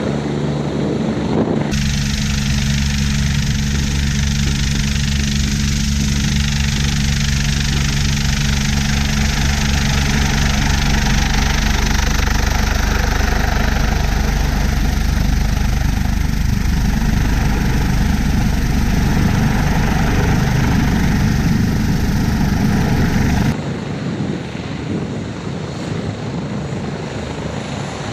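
UH-72 Lakota helicopter with its twin turboshaft engines running and main rotor turning at flight speed. From about two seconds in until near the end it is heard up close, with a steady low whine, a fast rotor beat and loud rushing air. Before and after that stretch it is heard from the ground as it hovers.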